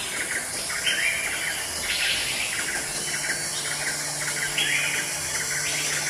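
Birdsong: a short chirping phrase repeated about once a second, with a quick run of notes followed by a higher note, over a steady high hiss.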